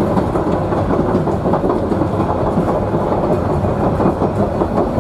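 Queensland Rail 2000 class diesel rail motor running along the track: a steady rumble with the clatter of its wheels over the rails.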